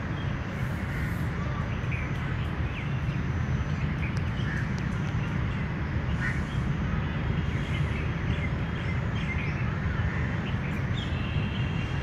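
Faint, scattered bird chirps and calls from several birds over a steady low background rumble.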